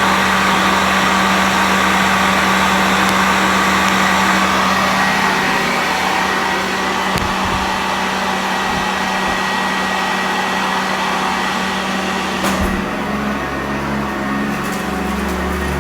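Sanitaire upright vacuum cleaner running steadily with its brush roll turning, a constant hum under a hiss of airflow; the tone changes about four seconds in and again near the end as the vacuum is worked over the carpet.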